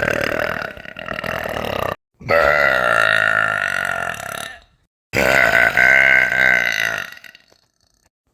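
A young woman belching. One long belch ends about two seconds in, then two more long belches of about two seconds each follow with short silences between. Each belch has a wavering pitch.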